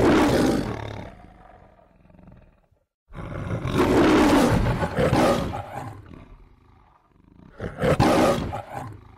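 Three roars of the MGM logo lion, the studio's trademark film-opening roar. The first is already peaking at the start and fades, the second comes about three seconds in, and a shorter third comes near the end.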